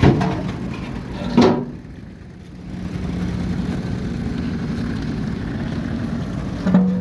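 Diesel engine of heavy equipment running steadily, easing off briefly about two seconds in, with a few sharp knocks: one at the start, one about a second and a half in, and one near the end.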